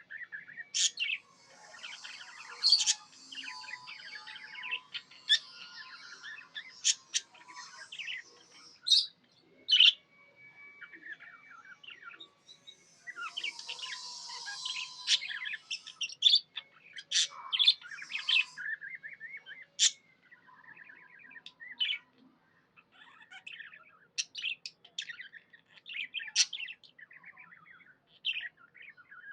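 Budgerigar chirping, the contented chatter of a happy budgie: a long run of short, sharp chirps, with two busier stretches of dense warbling, the first about two seconds in and the second around the middle.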